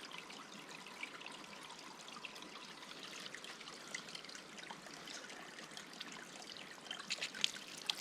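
Water trickling steadily, with a few small clicks and taps near the end.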